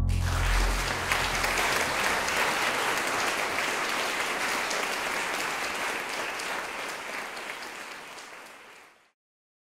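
Audience applauding, a dense clatter of many hands that fades slowly and then cuts off abruptly near the end. The low notes of the closing music die away under it in the first second or two.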